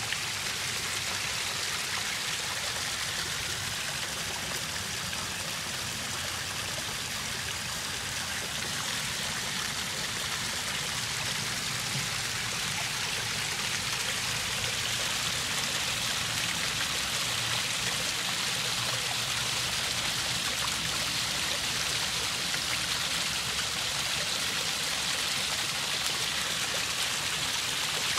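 Backyard pond waterfall: water spilling over rocks and splashing steadily into the pond, a little louder from about halfway through.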